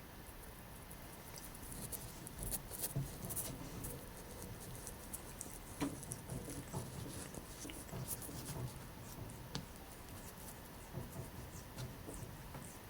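A cat making soft, irregular scratching and clicking noises, a scatter of small quiet ticks and rustles.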